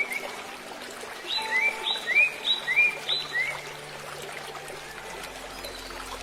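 An animal calling: a run of short rising chirps, about four paired calls in two seconds, over a steady background hiss, then only the hiss.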